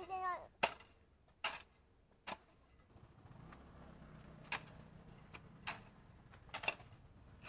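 A garden hoe chopping into weedy soil, about seven sharp strikes roughly a second apart, with a pause of about two seconds in the middle.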